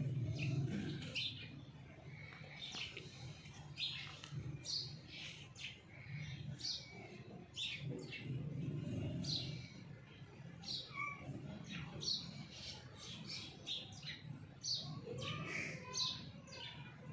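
Small birds chirping: a steady run of short, high chirps, with a low hum underneath.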